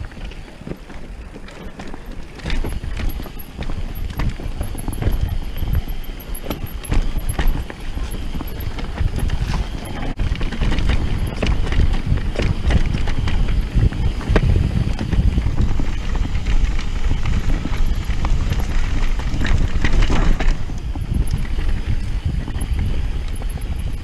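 Mountain bike clattering and knocking over a rough grassy trail, with a steady low rumble of wind and tyres on the rider's camera microphone.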